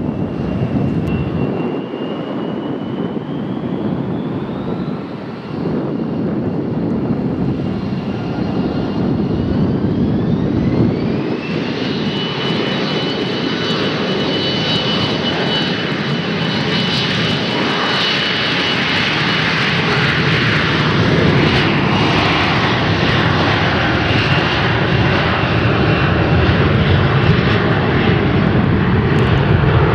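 Jet airliner engines spooling up: a whine rises in pitch twice, then holds steady over a loud roar that slowly grows louder as the engines reach high power.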